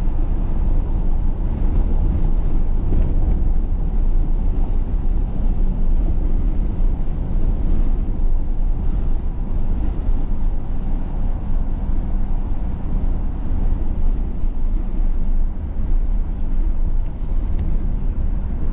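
Steady low rumble of a vehicle on the move, with road and wind noise.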